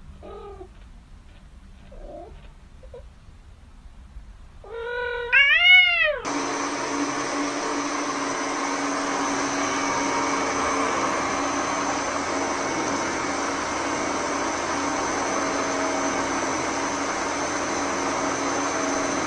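A cat meows faintly a few times, then gives one loud, long meow that rises and falls about five seconds in. Right after, a kitchen stand mixer with a blender jar starts up and runs with a steady motor whir.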